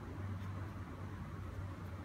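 Steady low hum with a faint hiss: room background noise, with a couple of faint ticks.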